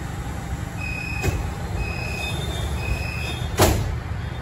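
Subway train doors closing: warning beeps repeat about once a second over the steady low rumble of the standing train, then the sliding doors shut with a thud about three and a half seconds in.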